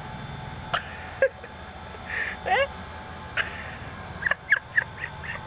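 Dog whimpering in short rising whines, with several in quick succession about four seconds in, and a few sharp clicks. The dog is choking on a bone stuck in its mouth.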